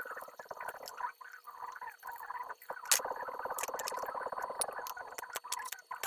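Stick welding on stainless steel: a buzzing crackle that comes and goes, broken by irregular sharp clicks and one loud crack about three seconds in, as the rod is struck to start the arc.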